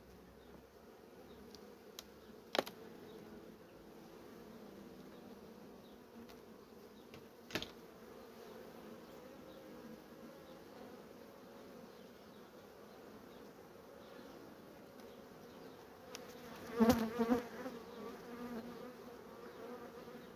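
Honeybees humming steadily over an open hive. A couple of sharp clicks and, near the end, a louder burst of knocks come from the wooden frames being worked.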